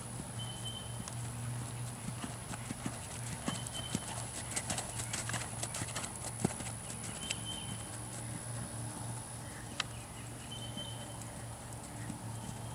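Hoofbeats of a ridden horse moving over sand arena footing: soft, irregular hoof strikes, busiest about halfway through, over a steady low hum.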